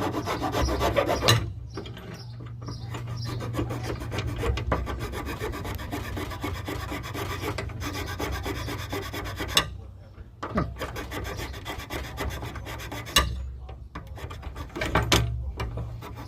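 Hand filing the rough cut edges of a quick disconnect: rapid back-and-forth rasping strokes that stop briefly a few times.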